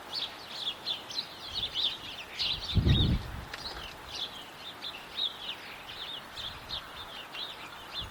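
Small birds chirping quickly and continuously, many short high calls overlapping. A brief low thump about three seconds in is the loudest sound.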